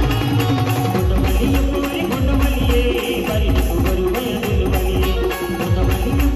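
Brass-band truck (band gadi) playing live music through its loudspeaker stacks: keyboard melody over a heavy bass beat and percussion.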